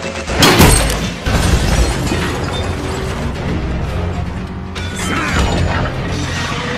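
Action-film soundtrack: dramatic music with a loud impact about half a second in, then a dense mix of mechanical clanking and whirring robot sound effects.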